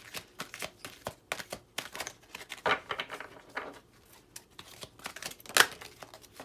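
Dreams of Gaia tarot cards being shuffled by hand: a run of light, quick papery snaps and slides, with one sharper slap about five and a half seconds in as a card is laid down on the wooden table.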